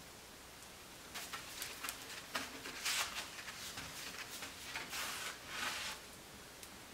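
Irregular crackling and rustling as a handful of dry tinder is crumpled and pushed into a wood-burning fireplace insert full of freshly lit kindling. It starts about a second in and stops about a second before the end.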